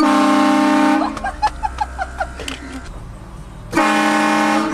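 Air-powered train horn blasting twice, each blast about a second long: a loud chord of several steady tones at the start, then again near the end.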